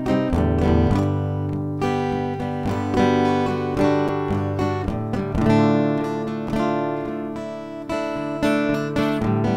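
Guitar strumming a sequence of chords, with repeated strums and the chord changing every second or so.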